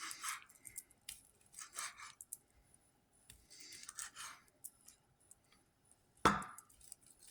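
Faint kitchen handling sounds as chorizo sausage links are handled on the counter, with a few soft rustles and one sharp knock a little past six seconds in.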